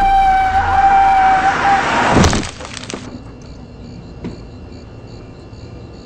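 Film soundtrack: one long, high note held steady for about two seconds, cut off by a loud crash, then a quieter stretch with faint steady high tones.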